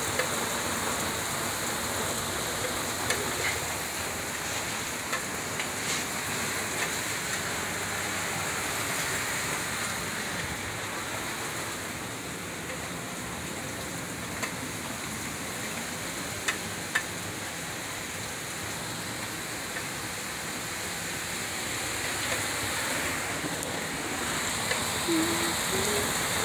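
Heavy rain pouring down, a steady dense hiss, with a few sharp clicks scattered through it.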